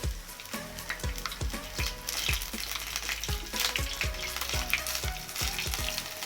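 Batter-coated cassava pieces deep-frying in hot oil, the oil sizzling and crackling steadily, with background music carrying a regular beat underneath.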